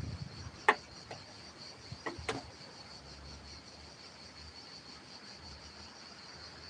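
Insects chirring steadily at a high pitch, with a few sharp taps: one just under a second in and a pair around two seconds in.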